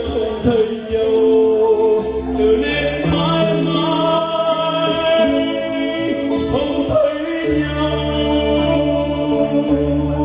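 A male singer performs a slow Vietnamese ballad live, holding long notes over keyboard and guitar accompaniment.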